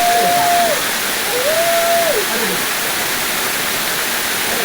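Waterfall rushing steadily into a wadi pool. In the first two seconds there are two short held calls, like a distant voice.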